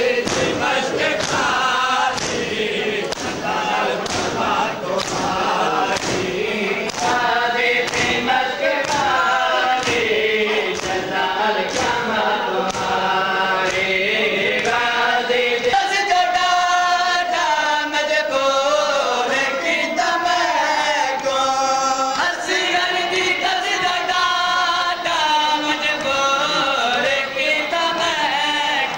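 Men chanting a noha in unison, with the rhythmic strikes of matam, open hands beating on chests, about twice a second. About halfway through the strikes drop away and a small group of reciters sings the noha into a microphone.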